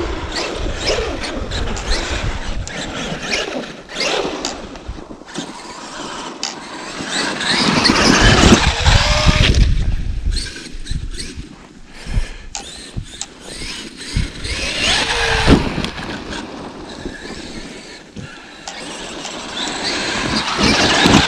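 Traxxas X-Maxx electric RC monster truck running through snow, its motor whining up and down in pitch as it accelerates and slows, with the tyres churning snow. The loudest run comes about eight seconds in.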